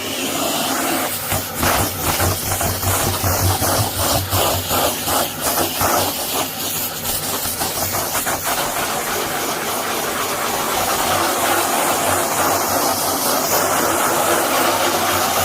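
Bosch Serie 2 bagless vacuum cleaner running with a loud, steady hiss of motor and rushing air. The pitch of the suction flutters rapidly for the first several seconds as the nozzle works over sofa upholstery, then settles.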